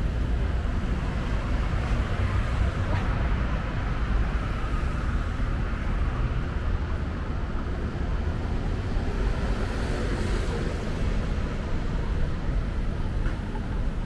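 Steady road traffic noise: a constant low rumble of passing vehicles on a busy city avenue.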